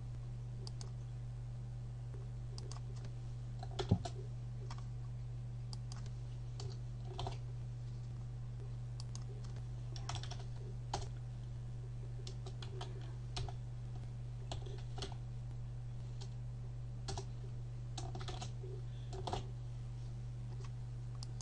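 Computer keyboard being typed on in short, irregular runs of keystrokes, with one sharper click about four seconds in, over a steady low hum.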